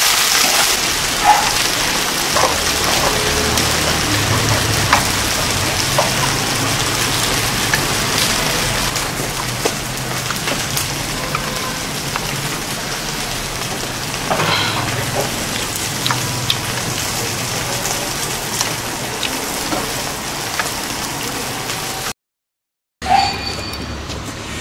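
Chopsticks tossing dressed braised pig's head meat and chopped greens in a stainless steel bowl, with scattered clicks of the chopsticks against the metal, over a steady hiss. The sound drops out briefly near the end.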